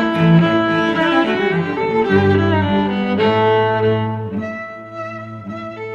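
Background instrumental music with sustained bowed-string notes over a low bass line, easing off about four seconds in before new notes enter near the end.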